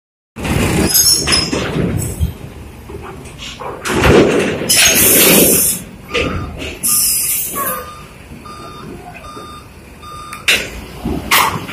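Heavy vehicles running around a ferry dock, with a loud rushing hiss about five seconds in, then a vehicle's reversing alarm beeping steadily, about six beeps in the second half.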